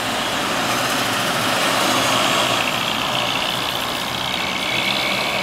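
Road traffic passing close by: pickup trucks and a large tanker truck driving past, their engine and tyre noise swelling about two seconds in.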